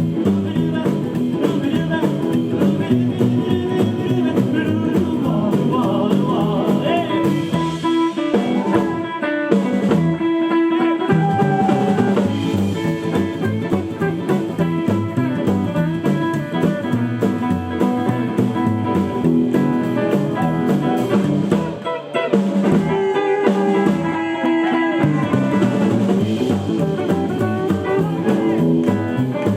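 Live 1950s-style rockabilly band playing an instrumental passage, guitar lead over a drum kit, with no singing.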